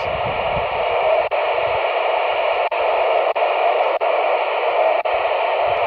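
Steady receiver hiss from a QYT KT-8900D mobile radio's speaker with the squelch held open on an empty 2-metre FM channel, with a thin steady whistle in it and a few brief dropouts.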